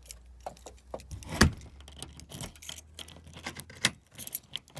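Keys jangling and a run of sharp metallic clicks and knocks, the loudest about a second and a half in, then a cluster near the end: a key working a newly fitted deadbolt lock on a door.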